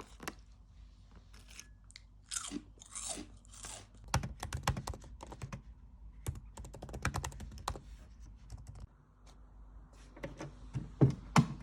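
Crunchy food being bitten and chewed, in clusters of sharp crunches, with a few short rustles before the chewing starts.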